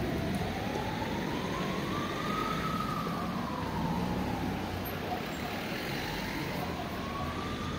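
Emergency vehicle siren wailing, its pitch rising and falling smoothly in slow cycles of about five seconds, over a low street traffic rumble.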